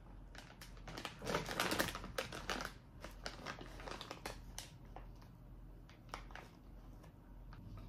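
Irregular light clicks and taps of hands working with food and utensils at a kitchen counter, with a denser burst of rustling and clatter about a second in.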